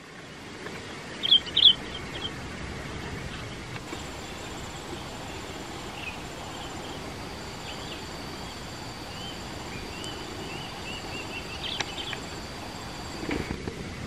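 Small birds chirping in dense bush, with two short, sharp high calls about a second and a half in and fainter scattered chirps afterwards, over a steady background hiss and a thin, steady high tone.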